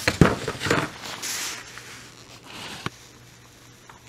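Handling noise at a workbench: a quick run of knocks and clicks as the clamped plastic armrest is handled, then two short hisses as glue is squeezed from the bottle along the crack, and a single sharp click about three seconds in.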